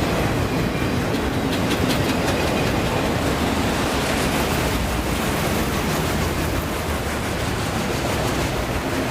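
A train rolling past: a steady, continuous rumble and clatter of steel wheels on the rails.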